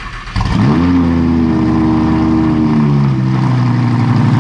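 Audi R8 V10 with a titanium aftermarket exhaust starting up: it fires about half a second in, flares up in revs, holds a high idle, then drops to a lower, steady idle about three seconds in.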